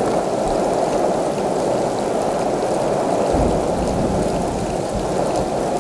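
Heavy monsoon rain falling steadily on a car's roof and windscreen, heard from inside the car.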